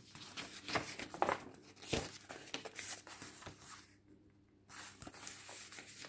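Paper pages of a thick handmade journal being turned and handled, a scatter of soft rustles and page flicks. The sound drops out completely for well under a second about two-thirds of the way through.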